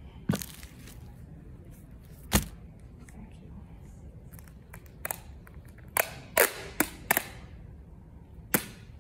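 A series of sharp clicks and knocks at irregular intervals, about eight in all, bunched more closely in the second half, over a steady low background hum.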